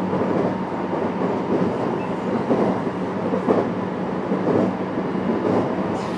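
JR West 321 series electric multiple unit (motor car KuMoHa 321) running at speed, heard inside the car: a steady motor and wheel hum over rolling noise, with a few short knocks from the wheels on the track.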